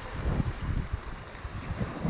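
Ocean surf washing on a shore, with gusty wind buffeting the microphone in low rumbles. A lull between breaking waves, the wash swelling again at the very end.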